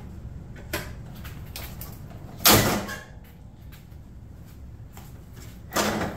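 Jeep Cherokee hood being shut: one loud slam about two and a half seconds in, then a second, shorter knock just before the end.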